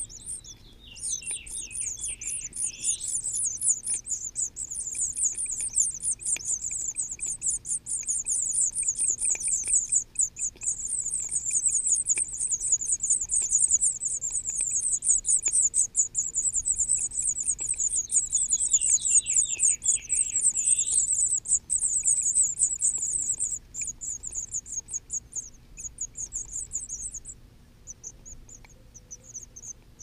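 House finch nestlings begging for food: a rapid, high-pitched chatter of calls while the adult feeds them. The chatter runs unbroken for most of the time, then breaks into shorter bursts near the end. Twice a short falling run of lower chirps cuts in.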